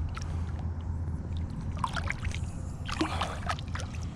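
Water splashing as a bass is held in the water to revive it and let go, with a brief splash about two seconds in and a longer one about three seconds in, over a steady low rumble.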